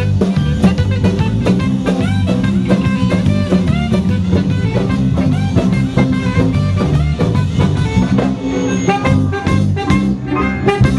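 Live band playing, with a saxophone lead over drum kit, bass and electric guitar.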